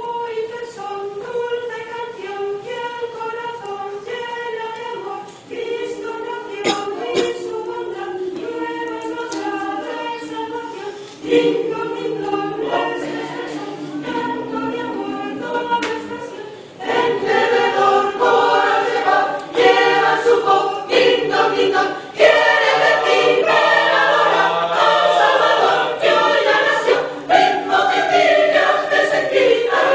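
Mixed choir singing a Spanish Christmas carol (villancico) with no instruments. Higher voices carry the tune at first, lower voices come in about a third of the way through, and the singing grows fuller and louder past the halfway point.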